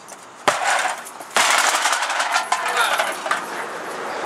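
A sharp knock, then a loud clattering rattle of hard objects that lasts about two seconds before dying down.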